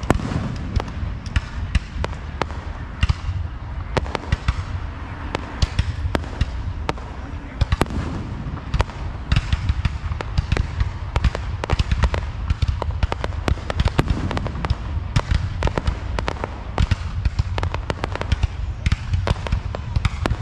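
Aerial fireworks display: shells bursting in a continuous barrage of sharp bangs and crackling, several a second, over a constant low rumble.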